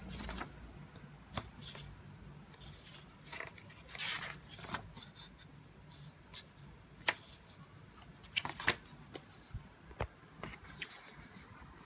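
Pages of a large paperback colouring book being turned and handled: irregular paper rustles and flaps with small sharp ticks, the longest rustle about four seconds in.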